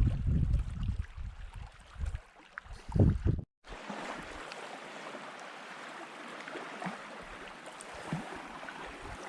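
Wind buffeting the microphone in heavy low gusts, cutting off abruptly about three and a half seconds in; after that a steady, even rushing hiss carries on.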